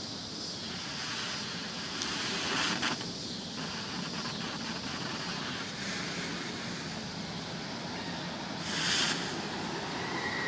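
A burning smoke bomb hissing steadily, with a brief louder burst of hiss about nine seconds in.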